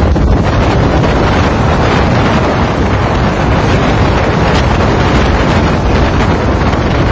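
Strong wind buffeting the microphone in a loud, steady rumble, mixed with the noise of the sea.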